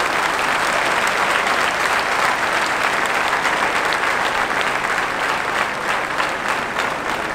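A large crowd applauding steadily, easing a little near the end.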